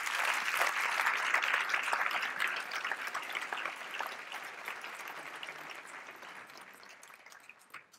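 A large audience applauding, strongest at the start and dying away gradually until it has almost stopped.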